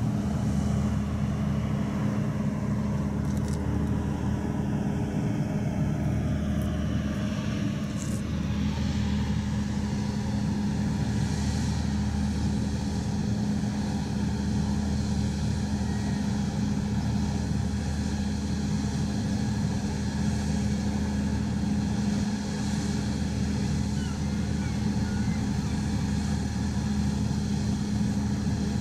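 An engine running steadily at constant speed: an unchanging low hum with a strong pitched drone.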